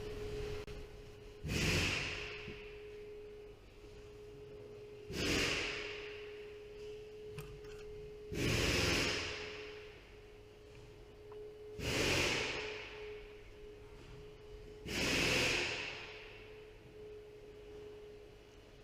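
A person breathing close to the microphone, about one breath every three seconds, over a faint steady tone.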